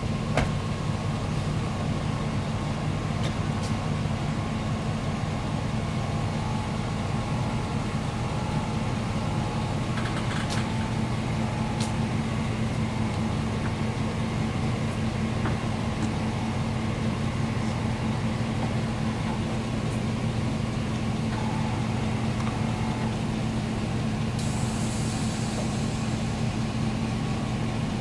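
Vehicle engine idling steadily, a low even drone with a few faint clicks over it.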